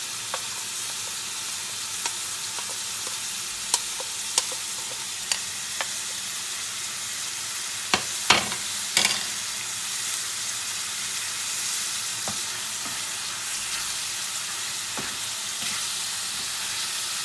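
Raw chicken pieces sizzling in hot oil in a metal frying pan, being fried until they change colour. A steady hiss, with scattered knocks and scrapes from a wooden spoon stirring against the pan, several close together about eight to nine seconds in.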